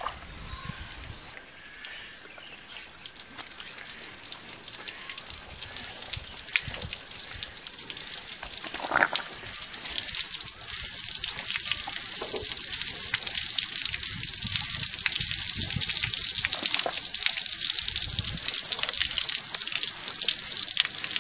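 Whey draining out of a cloth-lined wooden tofu mould full of fresh curds, trickling and splashing off the bench onto the ground. It grows louder about halfway through, as the curds are pressed down under the folded cloth.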